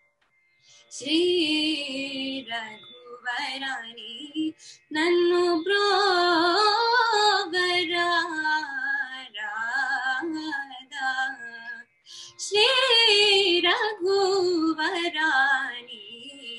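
A solo female voice singing a Carnatic raga alapana in Abheri raga: wordless, heavily ornamented phrases with sliding and oscillating pitch, separated by short pauses.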